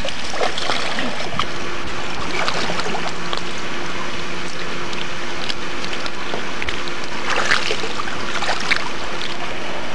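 Pool water splashing and lapping as a swimmer moves through it, over a steady hiss, with a few brighter splashes near the end. A faint steady hum runs underneath most of it.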